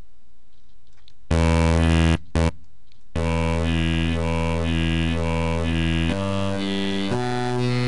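Native Instruments Massive software synth playing a deep talking wobble bass: the Speech wavetable pitched down two octaves, its vowel-like tone swept back and forth by an LFO into a repeating "yoy yoy". A short note and a brief blip come about a second in, then a held note starts about three seconds in and steps in pitch twice near the end.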